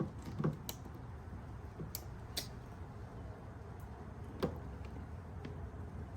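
A few small, sharp clicks and taps, about four spread out, from hand tools and small parts being handled, over a low steady background.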